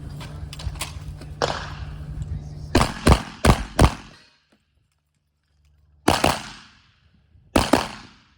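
Rapid 12-gauge shotgun fire: four fast shots a few tenths of a second apart, then, after a pause of about two seconds, two more single shots about a second and a half apart, each trailing off with an echo.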